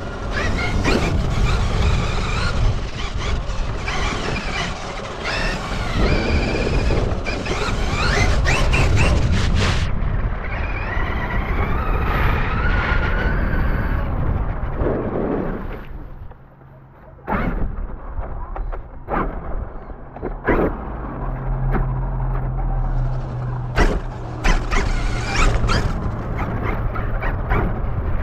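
RC car driving with the camera riding on it: loud rumbling tyre and chassis noise with a motor whine that rises and falls with speed. About two-thirds in it briefly drops away, then come sharp knocks over a steady low hum.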